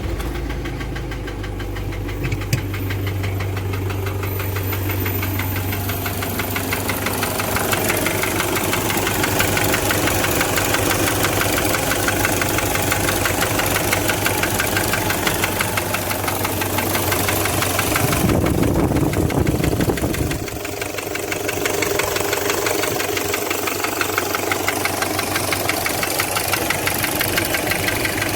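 Toyota 1KZ-TE four-cylinder turbo-diesel idling with a rhythmic knock. The mechanic traces the knock to a piston rocking in a scored (scuffed) cylinder liner. For about two seconds some two-thirds of the way in, a louder low rumble rises over it.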